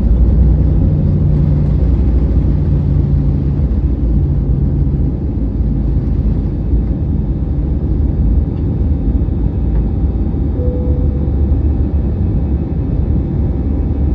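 Airbus A320 jet engines and airframe during takeoff: a loud, steady low rumble.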